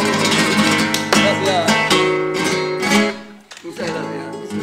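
Flamenco guitar strumming and plucking chords, ending on a final strummed chord about three seconds in, after which the sound drops much quieter.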